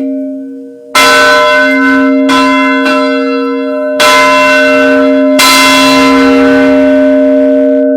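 Church bell swung by hand on its rope and heard loud from right beside it in the bell tower: the clapper strikes several times, the first hard stroke about a second in, and each stroke rings on into the next, with a steady hum between.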